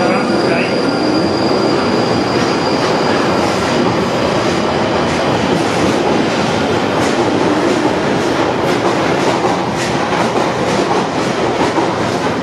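London Underground Northern Line 1995 Stock train pulling out of the platform, a loud steady rumble of motors and wheels, with rapid clicking of wheels over rail joints from about halfway through.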